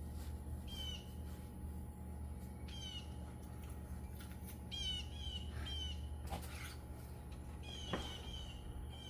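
A songbird calling over and over: each call is a quick falling run of notes ending on a short held note, repeated every second or two. A couple of faint knocks come in between.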